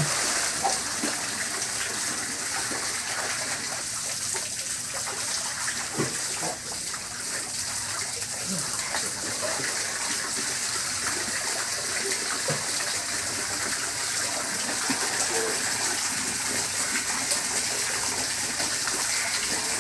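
Water pouring steadily from a wall-mounted waterfall spout into a small swimming pool, with splashing from people swimming in it.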